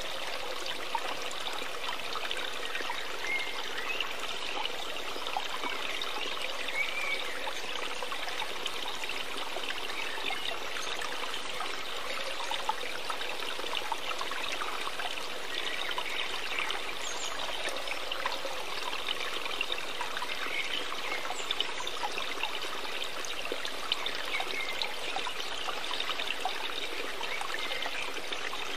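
Running water, a steady trickling stream, even and unbroken throughout.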